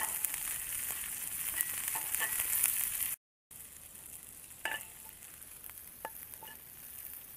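Apple snail meat sizzling in cooking spray in a nonstick frying pan over a wood fire, with small clicks as a knife tip turns the pieces. About three seconds in the sizzle breaks off and comes back quieter, with a few light knocks as the pan is lifted from the metal grate and set on the stones.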